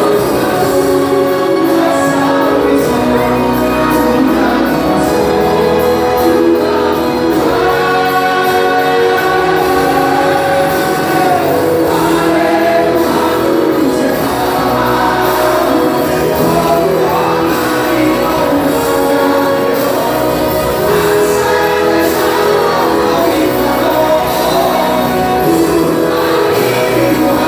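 A live gospel song: voices singing together over instrumental accompaniment, the sung lines held long and flowing.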